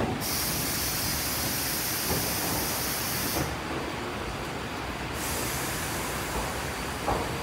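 Iyotetsu 3000 series electric train creeping into the platform with a steady low rumble. Its air brakes let out a sharp hiss that starts suddenly and cuts off after about three seconds, then hisses again more faintly about five seconds in. A few short knocks come from the wheels.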